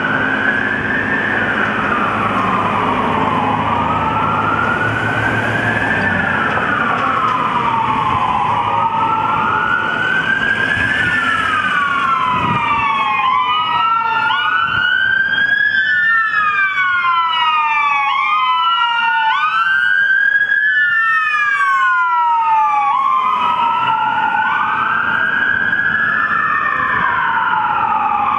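Emergency vehicle siren wailing, each cycle a quick rise in pitch and a slower fall, repeating about every five seconds. About halfway through, a second siren joins and wails out of step with the first. Steady street noise runs underneath.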